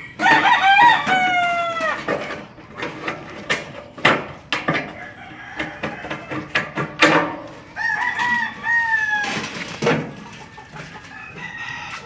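A rooster crows twice, a long falling call at the start and a second one about eight seconds in, over the sharp clicks and crunches of aviation snips cutting painted sheet-metal gutter.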